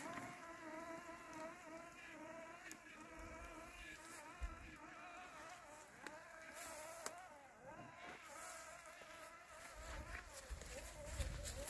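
LandXcape LX790 robotic lawn mower's brushless motors whining as it works through tall weeds, the pitch wavering up and down. Two sharp ticks about four and a half and seven seconds in, and a low rumble near the end.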